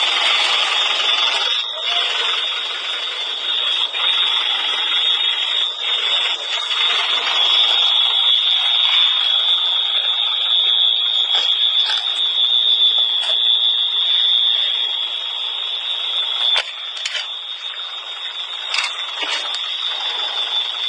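A steady, unbroken high-pitched alarm tone sounding over a noisy background, with a few scattered clicks and knocks.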